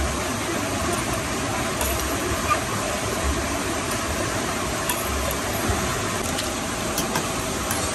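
Steady rushing of river water, with a few faint light clicks of a metal fork against a cooking pot.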